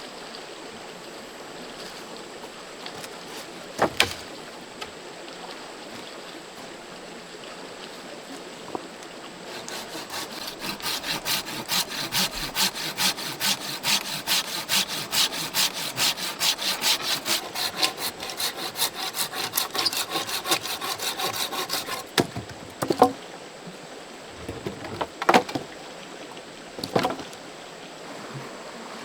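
A hand saw cutting wood in quick, even back-and-forth strokes for about twelve seconds, over the steady rush of a stream. A sharp knock comes before the sawing, and a few more knocks of wood follow once it stops.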